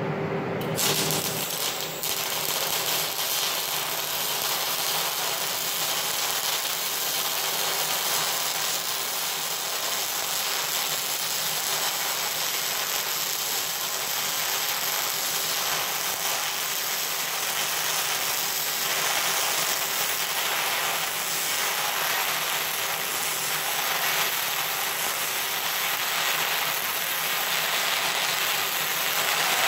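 MIG welding arc on steel, a steady crackling hiss that starts about a second in and runs on without a break.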